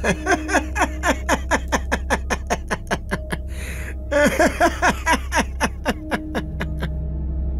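A man laughing at length in a rapid run of 'ha-ha' bursts, about four a second, each falling in pitch. The laugh breaks off about three seconds in and starts again with a second run. A steady low drone lies underneath.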